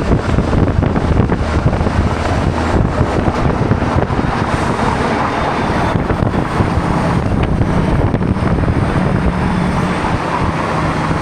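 Loud, steady road traffic noise.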